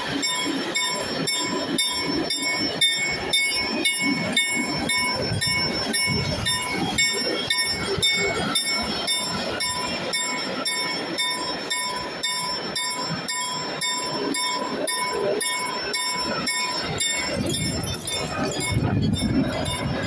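Level-crossing bell ringing in rapid, even strokes while a freight train rumbles past over the crossing. The train's low rumble grows louder near the end.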